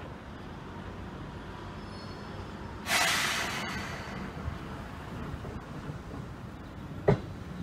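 Seibu 2000 series electric train standing at the platform: a sudden loud hiss of compressed air about three seconds in that fades over about a second, typical of the air brakes releasing, then a short sharp knock about seven seconds in as the train starts to move, over a steady low rumble.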